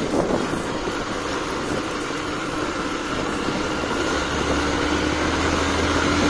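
Motor vehicle running with steady road and engine noise; about four seconds in, a low steady engine drone comes in.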